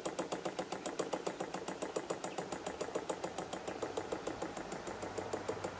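Small gamma-configuration Stirling engine running with a steady, rapid knock, about eight or nine a second. The knock is compression in the working gas, not metal parts banging onto each other.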